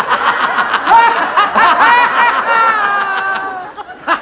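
Men laughing heartily in rapid ha-ha pulses, dying away just before the end.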